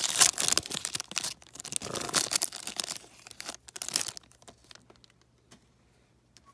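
Foil wrapper of an O-Pee-Chee Platinum hockey card pack being torn open and crinkled as the cards are pulled out. The crackling dies away after about three seconds, leaving a few faint clicks of the cards being handled.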